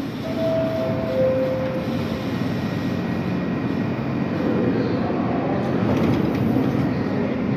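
Subway train running with a steady rumble and rail noise. Near the start a two-note falling chime sounds, the second note held longer.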